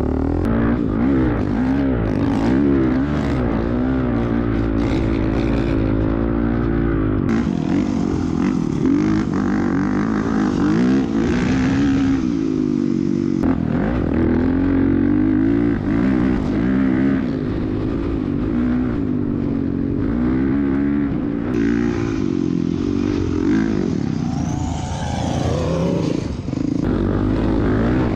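Honda CRF450R dirt bike's single-cylinder four-stroke engine running under load in sand, its revs rising and falling continuously with the throttle. Near the end a second, higher rising engine note comes in briefly.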